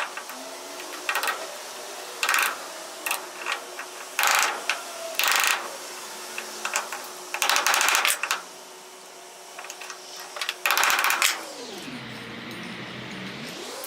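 Work on a framing hammer's handle: a series of irregular short scraping or grinding strokes over a steady motor hum. Near the end the motor's pitch drops and then recovers, as if briefly loaded down.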